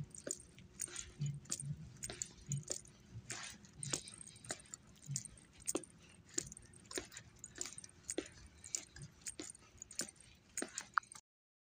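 Handling noise from a hand-held phone carried while walking: irregular clicks, ticks and light rattles, several a second, with soft low knocks. It cuts off suddenly near the end.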